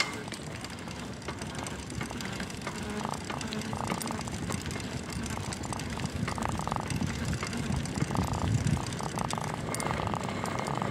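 Bicycle ride heard from a handlebar-mounted phone: wind rushing over the microphone and tyre noise on asphalt, with several short spells of rapid ticking.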